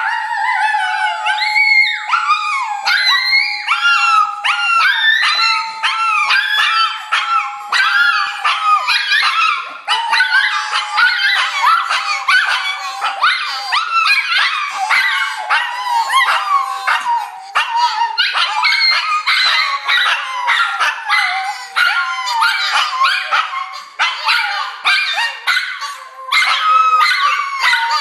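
Two Shih Tzus and a Papillon howling together in excitement: many overlapping, wavering high howls that keep going without a pause.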